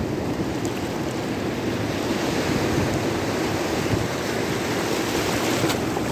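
Rough sea surf at high tide, breaking and washing continuously, with wind buffeting the microphone. The hiss of the surf swells from about halfway through until near the end.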